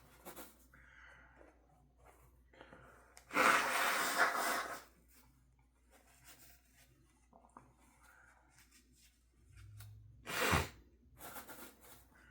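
A man's breathing and nose sounds between sneezes he is inducing by tickling his nose with a clothing tag. A long loud rush of breath comes about three seconds in, and a short sharp burst near the end.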